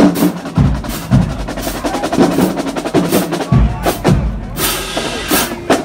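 Marching band drumline playing a cadence: a fast, even run of snare strokes and rim clicks with heavier bass-drum hits in the second half.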